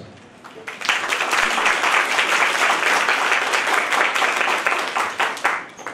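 Applause from an audience and panel, many hands clapping, rising about a second in and dying away near the end.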